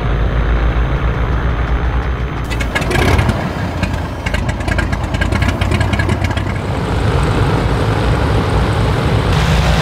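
Beechcraft Bonanza piston engines idling on the ramp, a steady low drone. A few seconds in, a stretch of crackling noise rides over the drone for about four seconds.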